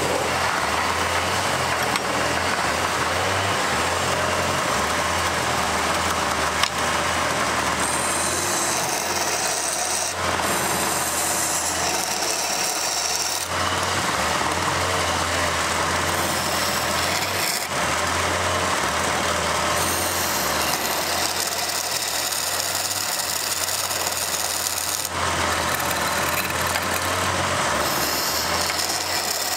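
Wood lathe running with a steady hum while a hand-held turning tool scrapes and cuts into the spinning wooden blank, hollowing its end. The cutting noise shifts abruptly every few seconds as the tool's contact changes.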